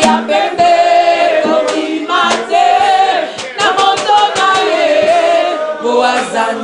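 A small group of women singing a slow worship song together, with held and gliding notes and a few short sharp taps between them.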